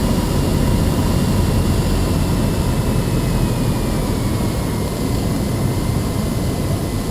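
Cessna 172N's four-cylinder piston engine and propeller droning steadily, heard from inside the cabin, with a thin whine that slowly falls in pitch.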